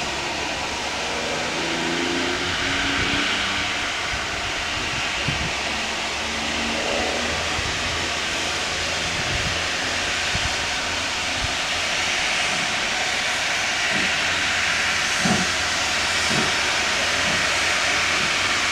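Steam locomotive blowing off steam: a steady hiss, with a few soft knocks.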